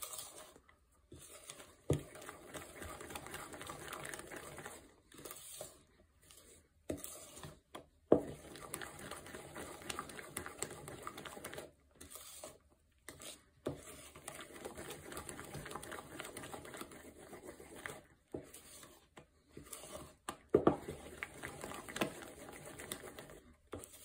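A spoon stirring thick fritter batter in a plastic bowl to work out the floury lumps: wet scraping and squelching in stop-start strokes, with a few sharp knocks of the spoon against the bowl.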